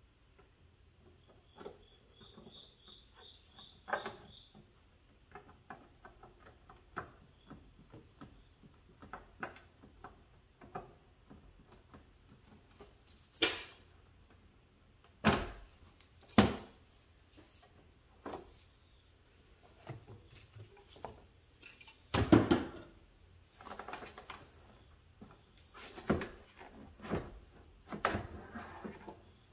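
Scattered clicks, rattles and knocks of hands working a Jeep Wrangler JK's coolant overflow bottle and its hose clamp free and lifting the bottle out of its mounting notches. The loudest knocks come about halfway through and again about two-thirds through. Faint cricket chirps sound in the first few seconds.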